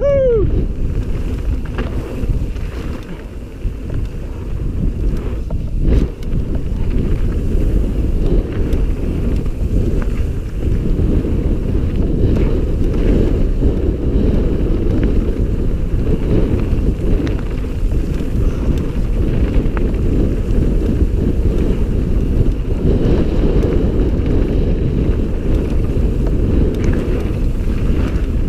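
Wind buffeting a helmet camera's microphone, mixed with the rumble and rattle of a mountain bike riding fast down a loose gravel trail, with a sharp knock about six seconds in.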